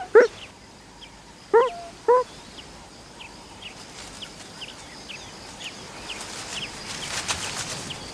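Three short, sharp animal calls in the first two seconds or so, each a quick pitched call that rises and falls, over faint high chirps that recur throughout. A scratchy rustle comes near the end.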